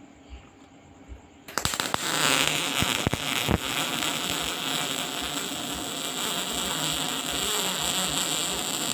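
MIG welding arc on 4 mm flat steel, striking about a second and a half in with a few sharp pops, then crackling steadily for about seven seconds before stopping abruptly.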